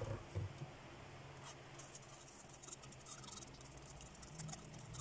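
A metal spoon scraping and pressing blended vegetable puree through a fine stainless mesh strainer: faint, rapid scratchy strokes that thicken after the first second or so, with a couple of soft knocks at the start.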